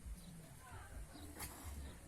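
Farmyard poultry calling faintly, a few short chirps, over a steady low rumble.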